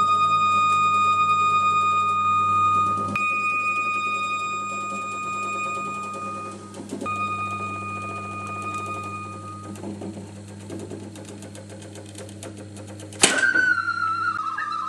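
Homemade tooting machine: a horn holds a steady note that drops out briefly twice and stops about two thirds of the way through, over a low hum and fast mechanical clatter. Near the end a second, higher note starts sharply and wavers in pitch.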